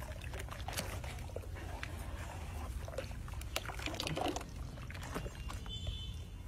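A metal mug scooping and pouring thin black slurry in a wide tub: repeated sloshing and splashing, with liquid trickling back from the mug.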